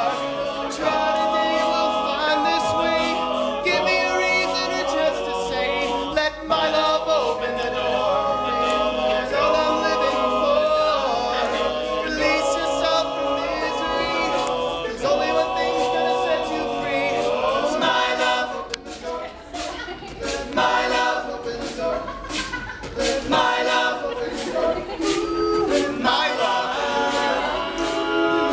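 All-male a cappella group singing a pop song in close harmony, a soloist over wordless backing voices, with a steady beat of sharp clicks. The voices thin out about two-thirds of the way through.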